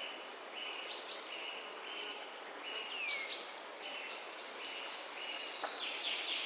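Outdoor chorus of birds and insects. A short, steady high note repeats about every two-thirds of a second, higher notes and a falling whistle about halfway through join it, and a quick run of very high notes comes near the end, all over a steady low background hiss.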